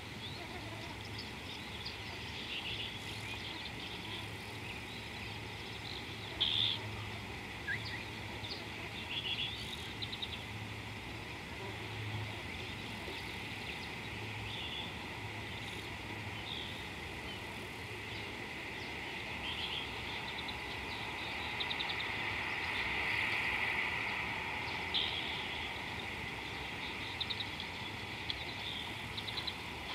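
Outdoor ambience at a watering hole: scattered short bird chirps and calls over a steady background hiss and faint low hum. A high-pitched chorus swells for a few seconds about two-thirds of the way through.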